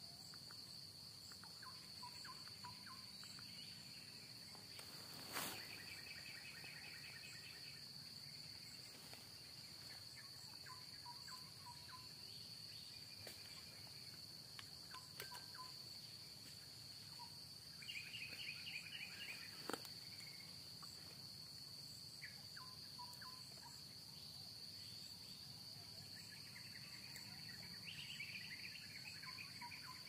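Faint plantation ambience: a steady high-pitched insect drone with scattered bird chirps and short trills, and two sharp clicks, one about five seconds in and one near the middle.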